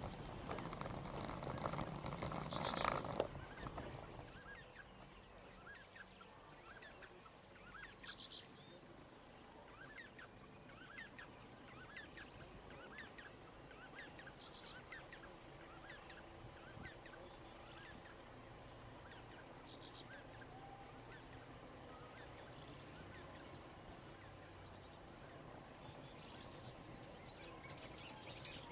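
Rural outdoor ambience of birds chirping: many short, falling high chirps repeating throughout over a faint steady high tone. The first few seconds also hold a louder low rumbling noise that ends in a sharp knock about three seconds in.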